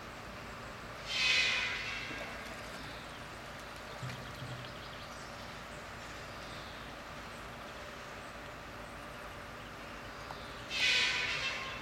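Steady rush of a flowing river. Two short, louder bursts of higher-pitched noise, one about a second in and one near the end, each fading within about half a second.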